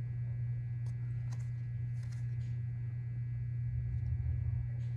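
A steady low hum, with a few faint ticks of baseball cards being flicked through by hand about one to two and a half seconds in.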